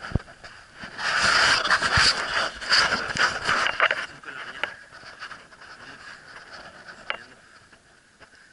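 Handling noise on a handheld camera's microphone: a sharp click, then about three seconds of loud rustling and scraping against the mic from about a second in, fading to a quieter rustle as the camera is turned round and held still.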